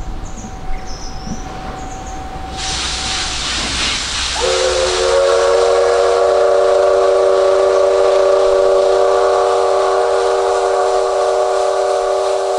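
Steam locomotive whistle: steam starts hissing a little under three seconds in, then the whistle opens into one long, steady blast of several tones at once, with the hiss carrying on underneath.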